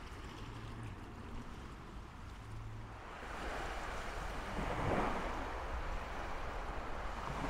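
Sea waves washing onto a beach: a low hiss that grows louder about three seconds in and swells to a peak around the middle.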